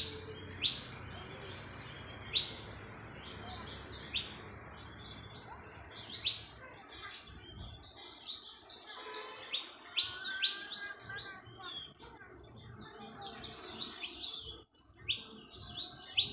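Wild birds chirping in a steady stream of short, high calls about once a second, over a constant high-pitched tone, with a few lower warbling notes partway through.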